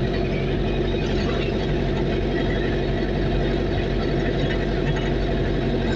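Engine of a moving road vehicle running steadily at cruising speed, a constant drone with road noise, heard from on board.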